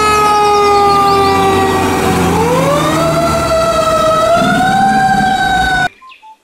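Fire engine siren sounding over a low engine rumble: the tone sags slowly for about two seconds, then rises and wavers. It cuts off suddenly near the end.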